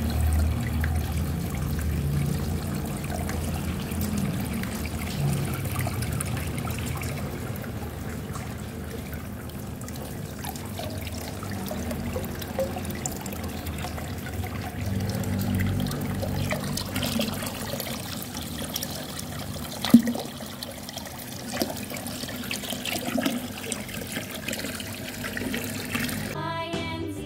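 Water pouring and trickling into a small fish pond or tank, with churning bubbles. There is one sharp tap about two-thirds of the way in.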